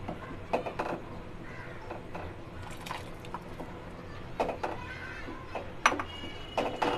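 Wooden spoon stirring boiling soup in a pan, knocking against the pan now and then, over a steady low bubbling.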